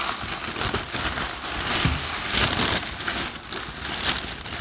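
Packaging being pulled off a soundbar by hand: continuous crinkling and rustling with many small crackles.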